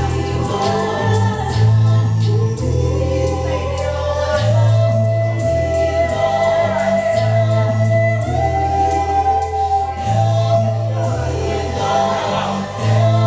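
Live rock band playing a song: steady drums, a bass line moving in long stepped notes, and sustained sung vocal lines, recorded from the audience in a small room.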